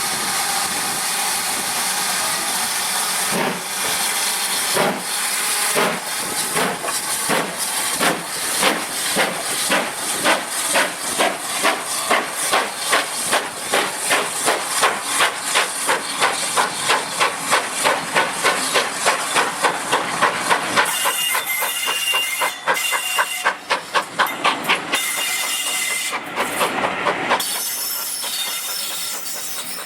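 Steam locomotive pulling away. Steam hisses under exhaust beats that start slow and quicken to a fast, even chuffing. A high steady tone comes and goes in the later part.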